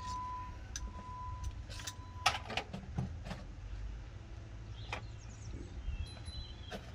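Scattered metallic clicks and knocks of hand tools and engine parts being handled, the sharpest about two seconds in, over a low steady rumble. A high beep repeats on and off for the first two seconds, then stops.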